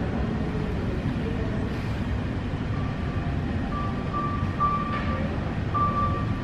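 Steady low rumble of room ambience, with a few faint, short high-pitched tones in the second half.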